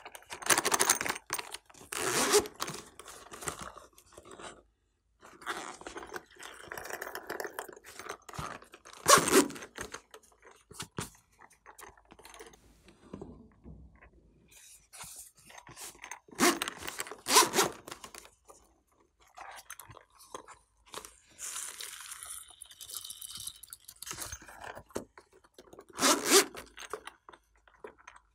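Slime being mixed with make-up and glitter in a glass tray: irregular scraping and squishing noises, with a handful of louder sharp sounds.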